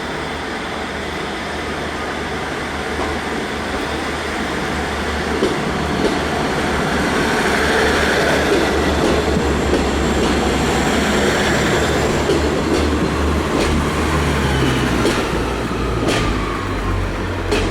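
Class 143 Pacer diesel multiple unit running, with a low engine drone and rail noise that grow louder over the first several seconds and then hold steady. A few sharp clicks come near the end.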